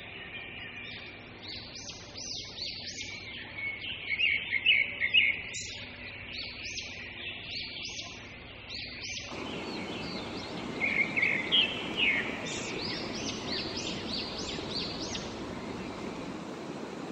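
Birds chirping over and over in short rising calls. From about nine seconds in, a small mountain stream's flowing water rushes steadily under them.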